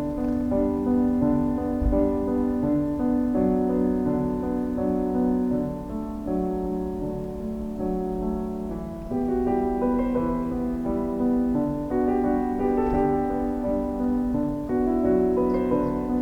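Background piano music: slow, held notes and chords.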